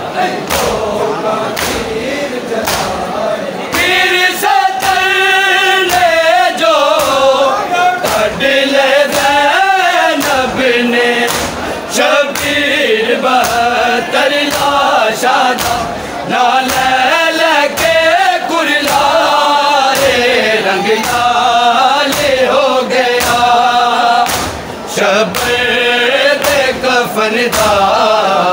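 A group of men chanting a noha together, with voices rising and falling in call-and-response. Under it is a steady beat of sharp, evenly spaced strikes: the rhythmic hand-on-chest beating (matam) of the mourners.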